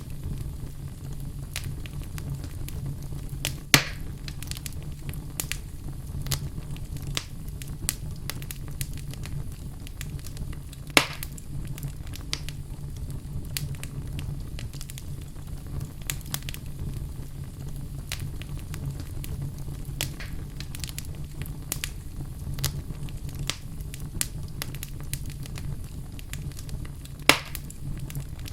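Wood fire burning in a fireplace: a steady low rumble of flame with frequent small crackles and three louder sharp pops, at about 4, 11 and 27 seconds in.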